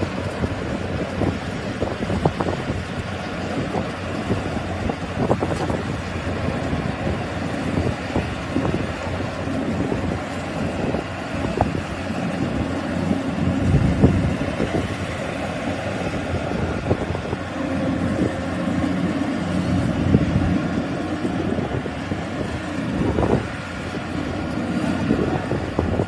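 Wind buffeting the microphone in uneven gusts over the steady running of a rice combine harvester's engine across the field.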